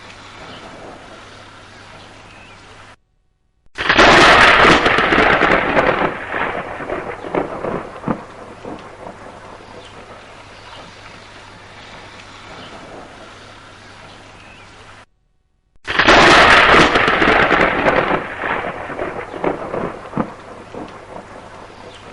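Steady rain falling, broken twice by a loud thunderclap that cracks and then rumbles away over several seconds. Just before each clap the sound cuts out completely for a moment.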